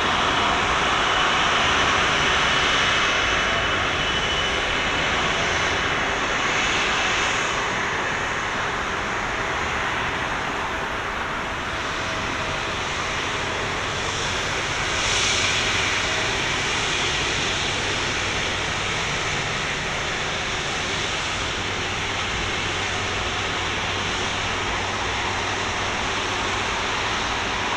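Airbus A330-200's twin jet engines running at taxi idle as the airliner rolls past: a steady jet rush with a faint high whine early on, swelling briefly about halfway through.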